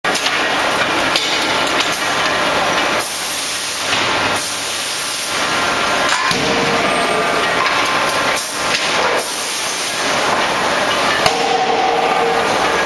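Shop-floor noise of a forge working with a 16 kJ CNC hydraulic die forging hammer: a steady loud hiss and din with a few sharp knocks of the hammer, the loudest about eleven seconds in.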